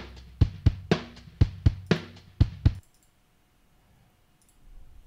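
Drum loop of kick, snare and cymbal hits, played back through a guitar pedalboard with a flanger pedal on it. The beat stops about three seconds in, leaving only a faint steady hum.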